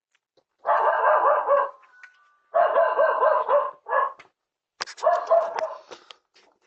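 A dog howling in long, wavering cries of about a second each: two long cries, a short yelp, then a third long cry with a few sharp clicks at its start.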